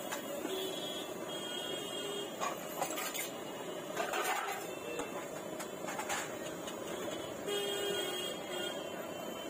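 Steady hubbub of a busy street-food stall with a few short clinks and knocks of utensils, and a horn sounding twice.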